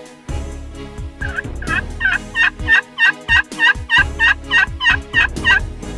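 Friction turkey call worked with a striker, run as a series of hen-turkey yelps: about fourteen even notes, about three a second, starting about a second in and stopping just before the end.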